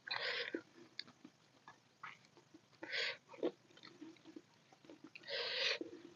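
Close-miked chewing and wet mouth sounds, with fingers squishing dal khichdi and egg curry on a steel plate. Three louder wet squelches are spread through it.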